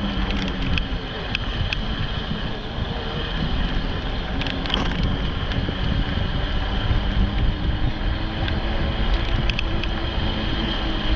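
Wind rushing and buffeting over the microphone of a moving electric bike, as a steady low rumble. A faint steady high whine runs underneath, with a few light clicks.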